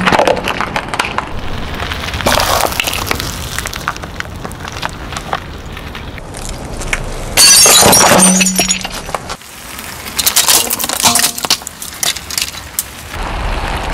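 A car tyre rolling over and crushing a series of objects one after another, with short sounds of squashing, cracking and crunching. There is a loud burst of crunching about halfway through, and sharp cracking and crackling near the end as plastic clothes hangers break under the tyre.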